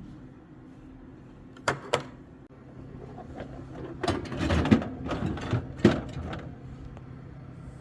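Groceries being put away in a refrigerator: two sharp clicks about two seconds in, then a few seconds of clattering and handling with two louder knocks as items are set on the shelves.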